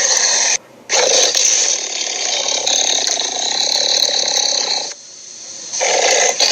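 Long, raspy, hissing growls made with the voice as creature sound effects: one ends about half a second in, a second holds for about four seconds, and a third starts near the end.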